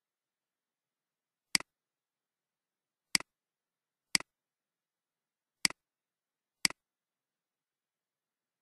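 Five computer mouse clicks, each a short press-and-release pair, spaced about one to one and a half seconds apart.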